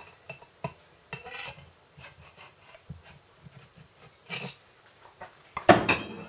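Handling noise from small workshop parts: scattered light clicks, taps and rubbing, ending in a louder cluster of knocks and scrapes about five and a half seconds in.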